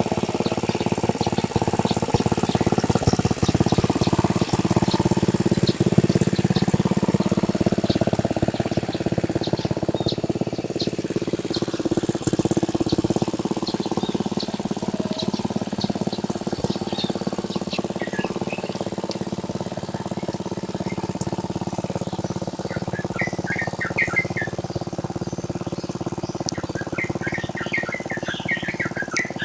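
Engine of a tractor plowing a rice paddy, running steadily and easing a little after about ten seconds, with birds chirping over it in the last third.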